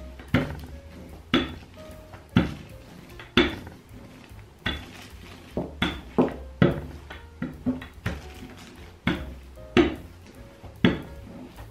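Wooden rolling pin worked back and forth over dough under plastic wrap on a silicone mat, knocking sharply about once a second as it rolls.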